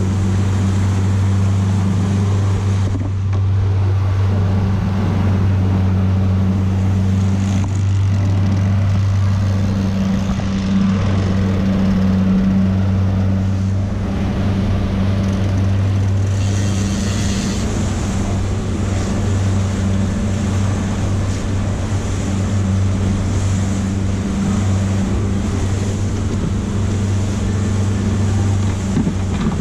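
Fishing boat's engine running steadily under way, a constant low hum with wind and water hiss over it.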